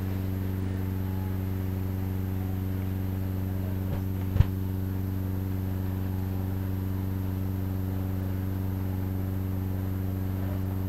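Steady low electrical hum from the church's sound system, an unchanging buzz, with one brief knock about four seconds in.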